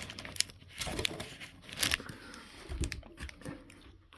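Packaging being handled: crinkling and rustling with several sharp clicks, as the ties holding an RC truck in its box are cut free.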